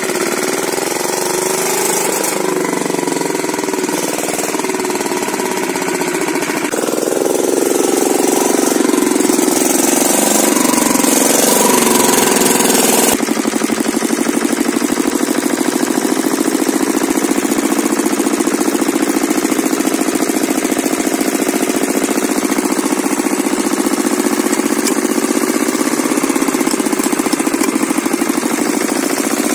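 Kirloskar diesel engine running, its speed wavering up and down for the first dozen seconds, then abruptly settling into a steady run for the rest.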